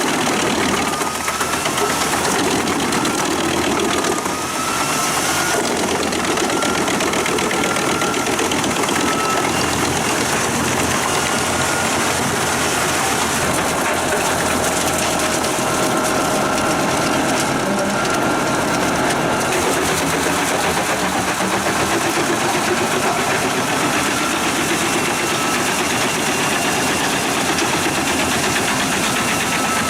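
Pezzolato PTH 1200/1000 drum wood chipper driven by a Claas Xerion 5000 tractor, running steadily while chipping logs. The engine noise mixes with the steel blades cutting wood.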